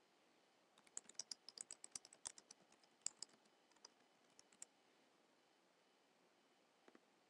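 Typing on a computer keyboard: a quick run of sharp keystroke clicks starting about a second in and lasting nearly four seconds as a short line of text is entered.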